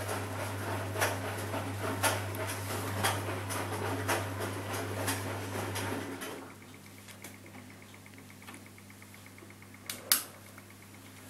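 Ardo A 500L front-loading washing machine in the wash phase of a 60° cotton programme: the drum turns the wet, soapy laundry with a steady motor hum and a slosh and knock about once a second as the load drops. About six seconds in the drum stops and the hum falls away into a quiet pause before the drum reverses, broken near the end by a single sharp click.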